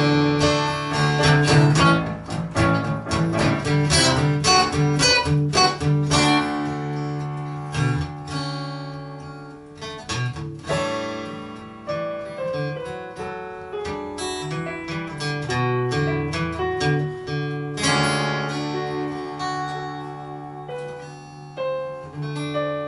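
Acoustic guitar and digital piano playing an instrumental passage together, with no singing; the playing is fullest in the first several seconds and softer after that.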